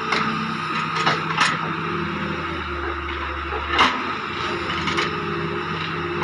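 Doosan DX140 excavator's diesel engine running steadily under hydraulic load while it digs a trench. A few sharp knocks and scrapes come as the bucket works in the soil; the loudest is about four seconds in.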